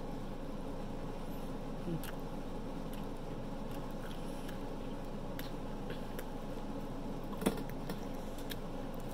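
A person chewing pizza close to the microphone: scattered small wet mouth clicks over a steady low hum, with one sharper click about seven and a half seconds in.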